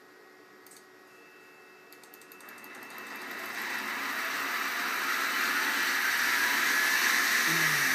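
Grizzly G0704 milling machine's spindle motor switched on and spinning up: a mechanical hum and whine rises over about two seconds, starting a couple of seconds in, then runs steadily at its set speed.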